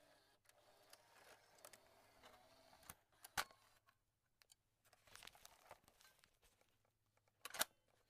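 Cassette being ejected from a tape deck: faint plastic rattling, then sharp mechanical clicks about three seconds in and a loud cluster of clicks near the end.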